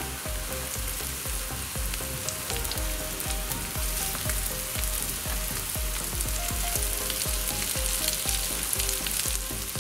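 Colocasia (taro root) cutlets sizzling as they shallow-fry in oil in a pan, with scrapes and light clicks of metal tongs and a turner as the cutlets are flipped one by one to brown the second side.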